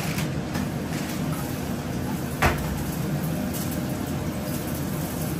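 A spatula working in a frying pan over a steady low hum, with one sharp knock about two and a half seconds in.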